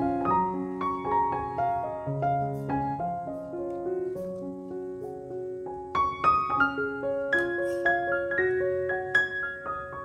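Background piano music: a gentle melody of single notes over lower accompanying notes.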